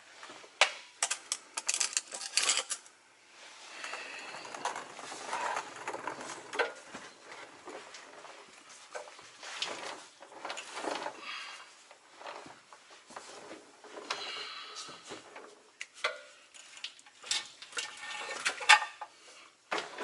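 Irregular metal clanks, clinks and scraping of a heavy truck transmission being worked into place, with a dense run of sharp knocks in the first few seconds and more near the end.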